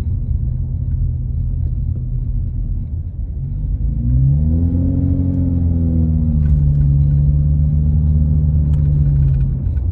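Car engine and road rumble heard from inside the cabin. About three and a half seconds in, the engine note rises as the car accelerates, then eases and holds steady, dropping away just before the end.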